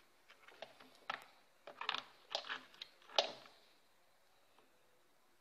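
Small clicks and knocks of hands working a rice cooker and its power plug while plugging it in, a cluster of them in the first three seconds, the loudest just past three seconds in.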